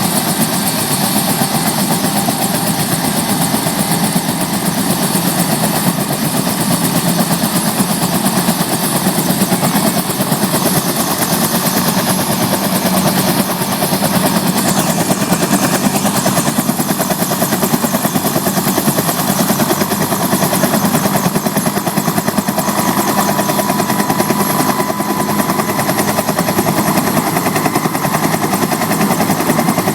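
Bell UH-1H Huey helicopter running with its rotor turning: a fast, steady beat of the main rotor blades over the whine of its turbine engine.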